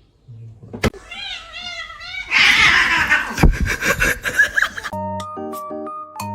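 A cat calling in several short, wavering meows, followed by a loud, harsh, noisy stretch with a thump. About five seconds in, music with plinking mallet-like notes starts.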